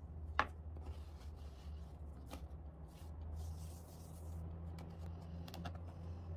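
Floury hands patting and rubbing a cornstarch and powdered-sugar mix into a slab of sticky Turkish delight: soft rubbing and dabbing, with a sharp click about half a second in and a few fainter ticks later. A steady low hum runs underneath.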